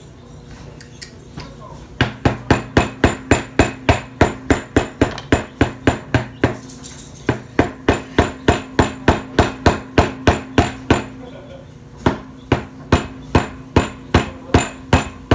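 Rapid, regular knocking of a utensil beating against a bowl as slime is mixed hard, about four to five strikes a second in three runs separated by short pauses.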